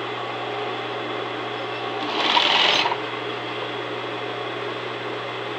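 Electric sewing machine running steadily with a low hum, stitching a narrow folded hem in thin fabric. A louder, noisier burst about two seconds in lasts under a second.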